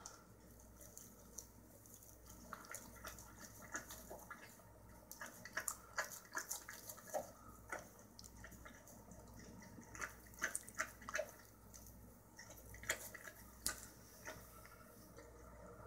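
Pit bull licking and chewing at a hamburger on its paper wrapper: faint, irregular wet mouth smacks and clicks, coming in small clusters.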